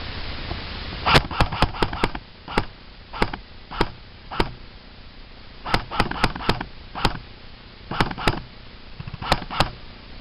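Airsoft electric gun (CYMA MP5K PDW) firing semi-automatic shots. A quick string of about six comes first, then single shots about half a second apart, another quick string, and a few more shots in twos and threes near the end.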